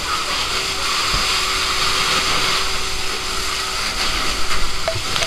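Fire hose nozzle spraying a high-pressure water jet: a steady rushing hiss.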